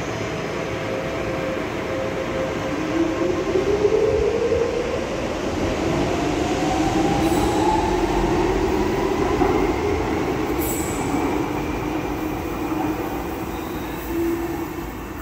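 Docklands Light Railway train pulling away from the platform. Its traction motors whine up in pitch as it accelerates over the rails, and the sound fades as it runs off down the line.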